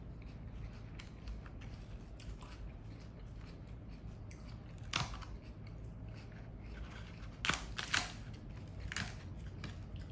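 Eating a salad in a crisp fried tortilla shell: chewing with sharp crunches of the shell, one about halfway through, two in quick succession a couple of seconds later, and another near the end.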